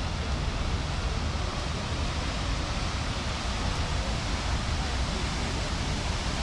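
Steady rushing splash of water from a large tiered park fountain with arcing jets, an even noise with a low rumble underneath.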